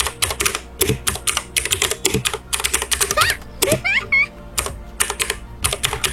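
Typing on an Akko 3108 V2 full-size mechanical keyboard fitted with Akko Blue clicky switches: a rapid, irregular run of very sharp, crisp clicks, similar to Cherry Blue switches.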